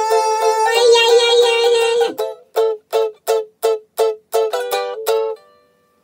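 Ukulele strummed without singing: steady chords for about two seconds, then a run of short, clipped chord strikes. A last chord cuts off about five and a half seconds in, closing the song.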